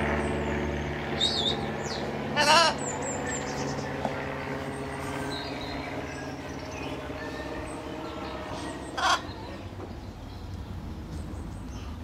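Blue-and-gold macaw giving two loud, harsh squawks, one about two and a half seconds in and another about nine seconds in, with a few faint high bird chirps. A steady low hum fades over the first few seconds.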